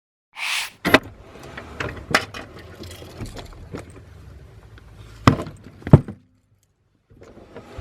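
A short swish, then a string of irregular clicks and clattering knocks, with two louder knocks about five and six seconds in.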